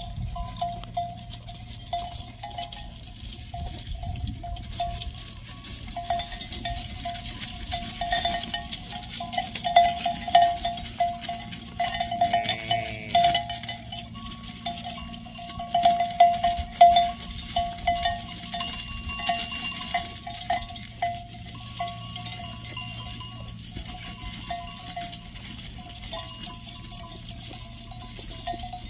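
Bells hung on grazing sheep clanking and ringing irregularly as the flock moves about.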